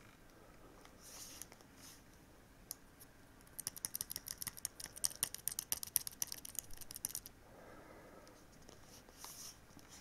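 Typing on a Logitech K750 wireless solar keyboard's slimline keys: a quick run of key clicks, several a second, lasting about three and a half seconds in the middle.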